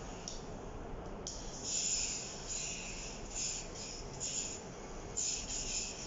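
Electric pet nail grinder filing a parrot's claws: a high-pitched rasping hiss that comes and goes in short stretches as the grinder touches and leaves the nail.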